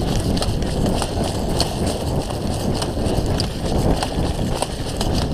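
Footsteps of a player running in airsoft gear, a few irregular thuds a second with gear jostling over a low rumble of movement on the microphone.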